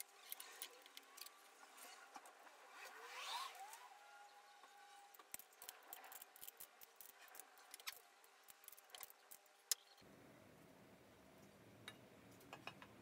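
Faint light metallic clinks and small knocks as a VW Beetle axle tube is handled and slid onto the gearbox's side, with a brief faint squeak about three seconds in; otherwise near silence.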